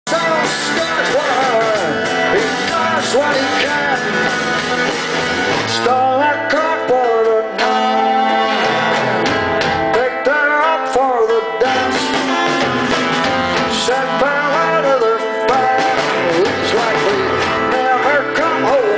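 Live indie rock band playing: a male lead vocal over strummed acoustic guitar and bowed cello, with an electric guitar behind them.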